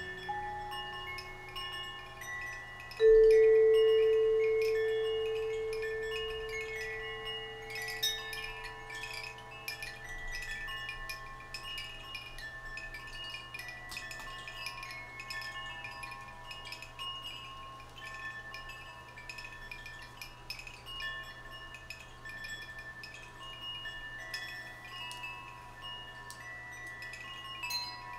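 Hanging metal chimes ringing and shimmering with many overlapping high tones and light taps. About three seconds in, one deeper bell-like tone is struck loudly and slowly dies away over several seconds.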